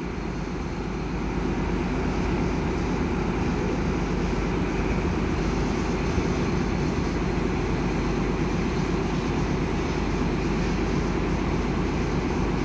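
Diesel trains standing at the platform with their engines idling: a steady low drone that swells slightly over the first second or two, then holds level.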